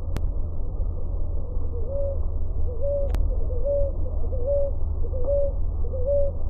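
Ruddy ground dove singing: a run of short, soft coos repeated about three every two seconds, picking up again about two seconds in after a brief pause. A steady low rumble runs underneath.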